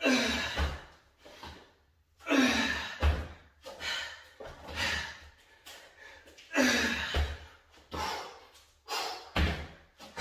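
A man breathing hard from exertion during dumbbell plank rows, with forceful rushing exhales and gasps every second or so. Soft low thumps come under some of the breaths.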